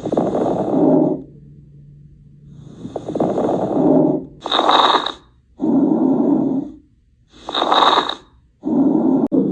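Normal lung breath sounds as heard through a stethoscope: a steady series of breaths in and out, about one breath cycle every three seconds. Some breaths sound lower and fuller, and shorter ones alternating with them carry a brighter hiss.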